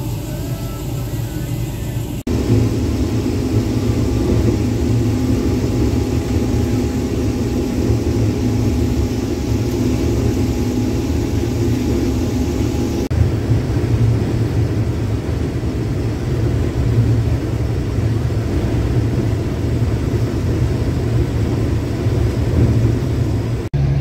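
Case IH 2388 combine running under load while harvesting corn, heard from inside the cab: a steady engine and threshing drone, with abrupt shifts in the sound about two seconds and thirteen seconds in.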